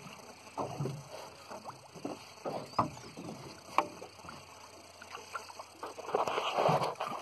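Small waves lapping against the hull of a small fishing boat, with a few sharp knocks about three and four seconds in.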